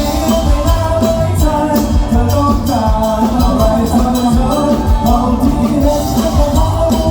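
Live band music playing loud, with a steady drum beat, heavy bass and a held melody line.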